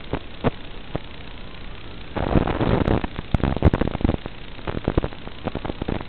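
FPV racing quad with 2206 motors on four-blade 5-inch props in flight: a hard burst of throttle about two seconds in lasts around two seconds, with crackling pops and clicks before and after it.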